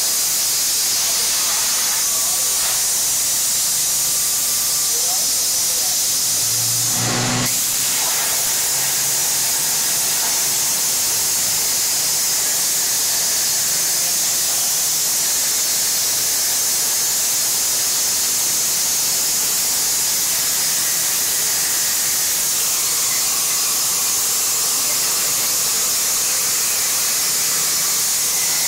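A 65 A plasma cutter on a CNC table cutting 8 mm plate: a loud, steady hiss of the arc and air. A short low thump comes about seven seconds in.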